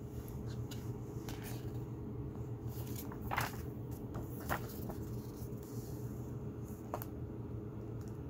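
Pages of a paper rule book being turned: several short rustles and swishes, the loudest about three and a half seconds in, over a steady low hum.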